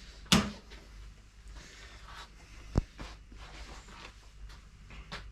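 Workshop handling noises: a loud knock about a third of a second in, a short sharp thud near three seconds, and light clicks and scrapes between, as things are picked up and set down on the bench.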